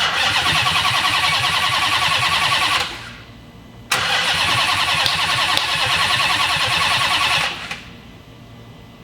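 Starter motor cranking the supercharged 6.2-litre Hellcat Redeye HEMI V8 twice, each try about three seconds long, without the engine firing. The engine cranks but won't catch: afterwards there is no fuel pressure and no RPM signal, which the crew suspects is the crank sensor.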